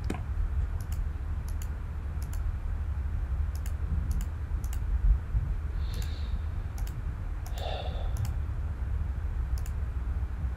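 Computer mouse buttons clicking at an uneven pace, singly and in quick pairs, roughly two clicks a second, over a low steady hum.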